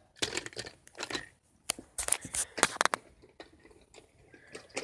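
Irregular plastic clicks and short rattles of Lego pieces being handled, several quick ones close together around the middle.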